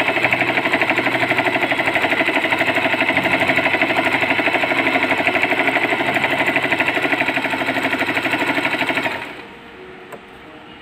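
Bernette Sew & Go 1 sewing machine running steadily with rapid, even stitching, sewing a zigzag picot edge at a short stitch length. It stops suddenly about nine seconds in.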